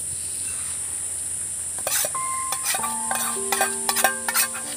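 Metal spoon beating eggs in a steel dish: rapid clinking strokes, about four a second, start about two seconds in, and each stroke leaves the dish ringing briefly. A steady high hiss runs underneath.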